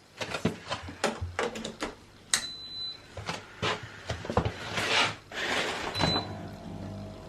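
Plastic clicks and knocks from handling a 10-litre dehumidifier, with two short electronic beeps from its control panel. About five seconds in, the dehumidifier starts running with a steady hum.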